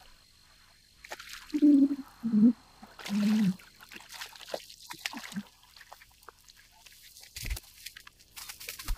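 A hooked crappie splashing and thrashing at the water's surface as it is reeled in and lifted out, broken by three short wordless vocal sounds from the angler about two seconds in. Near the end come a couple of sharp thumps as the fish lands and flops on dry grass.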